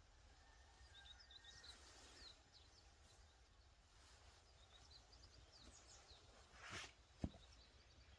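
Near-silent outdoor ambience with faint scattered bird chirps. A short rustle comes near the end, followed by a single sharp click.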